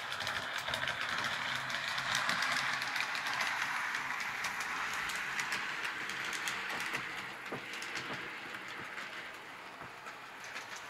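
H0-scale model train running on the layout's track: a steady rolling hiss with quick clicks of the wheels over rail joints, loudest about two seconds in and fading as it moves away.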